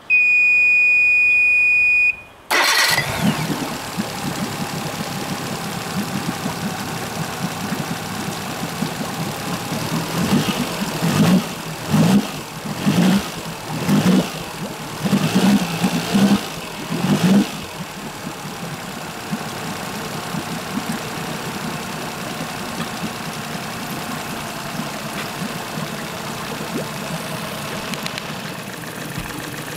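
After a steady beep about two seconds long, a Suzuki DF50 three-cylinder four-stroke outboard motor starts almost at once and settles into a smooth, quiet idle. Between about ten and eighteen seconds in it gives a series of short louder surges, then idles steadily again.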